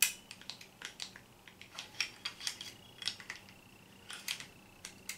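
Small metal clicks and scrapes of a Smith & Wesson M&P22 pistol's slide being lined up and fitted onto its frame over the guide rod and recoil spring. There is a sharp click at the start, then many light, irregular ticks.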